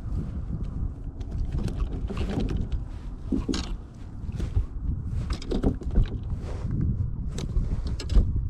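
Wind rumbling on the microphone in a small fishing boat, with scattered knocks and clicks of gear being handled.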